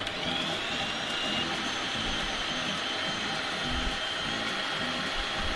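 Countertop blender switched on and running steadily at full speed, blending a thick batter of sweet corn, eggs and flour for corn fritters.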